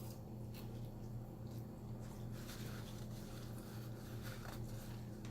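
Faint close-up chewing, with scattered soft wet mouth clicks and smacks, over a steady low hum.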